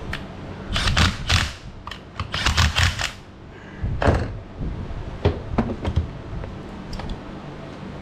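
Hand work on a chainsaw: two bursts of rapid metallic clicking and clattering in the first three seconds, then several separate knocks as parts and tools are handled.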